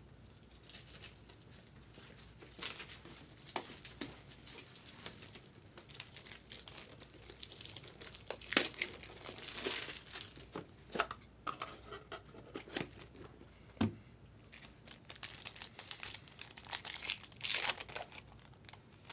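Foil wrapper of a 2023 Bowman Inception trading-card pack crinkling and being torn open by hand, in irregular rustling bursts, with one sharp, louder crackle near the middle.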